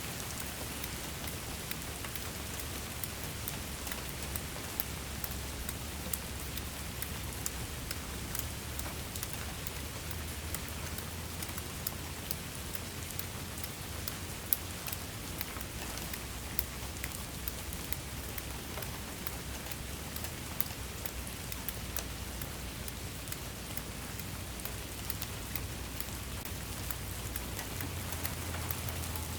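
Steady rain falling, with a constant hiss and many distinct drops ticking on a surface, over a low rumble.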